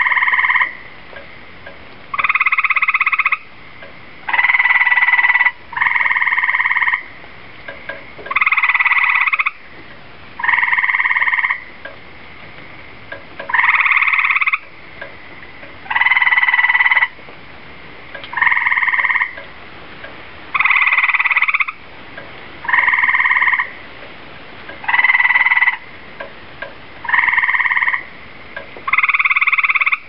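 Tree frogs calling, repeated calls about a second long coming one after another every couple of seconds.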